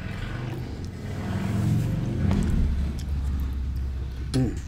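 Low rumble that swells and then fades over a few seconds, like a road vehicle passing by.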